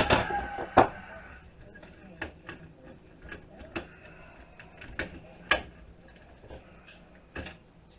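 Irregular sharp clicks and small knocks of hand tools and loose metal parts being handled while a network switch's circuit board is taken apart for scrap, the loudest just under a second in. A short squeak fades out right at the start.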